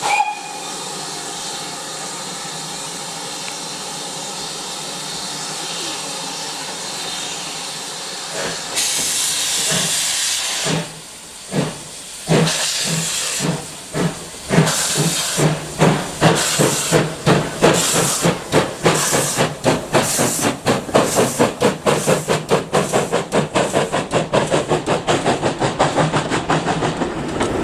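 GWR pannier tank steam locomotive starting away: a steady hiss of steam, louder from about nine seconds in as the drain cocks vent, then exhaust chuffs that begin slowly and quicken as the train gathers speed.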